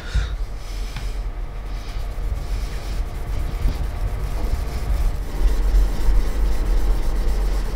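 Steel katana blade tip rubbed against a polishing stone: a steady gritty rubbing over a low rumble. This is the hazuya stage of the polish, cleaning and whitening the surface of the point.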